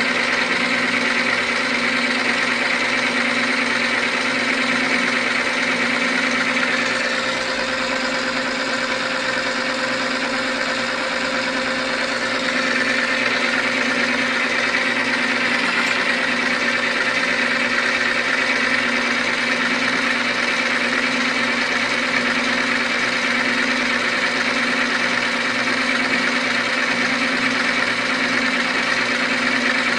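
Manrod MR 301 lathe running steadily under power, a continuous motor hum with an even hiss on top. It drops a little in loudness from about seven to twelve seconds in, then comes back up.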